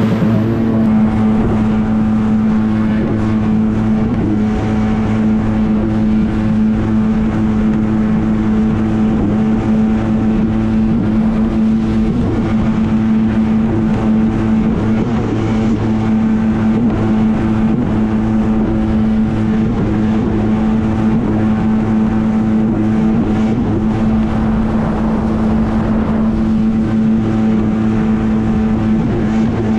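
Yamaha WaveVenture jet ski's two-stroke engine running at a steady pitch while cruising, holding one even drone throughout.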